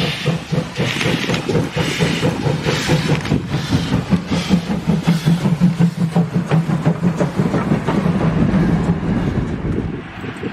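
Steam locomotive passing close by with steam hissing from its cylinders in regular beats, then the rapid clatter of wheels and running gear as the engine and tender go past. The sound drops to a lower level near the end.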